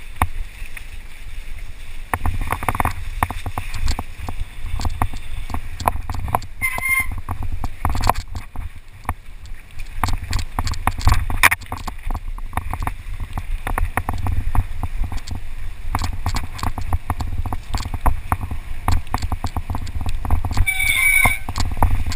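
Mountain bike descending a rough, rutted dirt trail at speed: rapid rattling and knocking of the bike over the bumps, with heavy wind rumble on the microphone.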